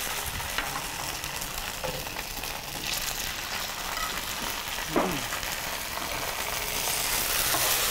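Slices of polenta sizzling as they sear in a hot frying pan. The sizzle swells a little near the end as more slices go in, with a few light taps of the knife and spatula.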